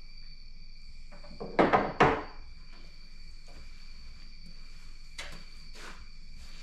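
Three quick, loud clunks about a second and a half in, then two fainter knocks near the end.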